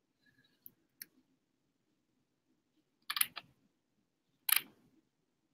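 A few scattered clicks and taps from working a computer: two faint clicks in the first second, a quick cluster of clicks about three seconds in, and a single louder one near the end.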